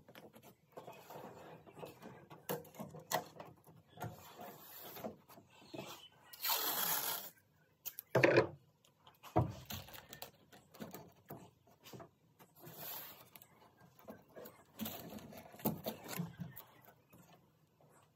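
Masking tape being peeled off a plywood panel, a crackly ripping that comes in irregular spurts. A short knock about eight seconds in is the loudest sound.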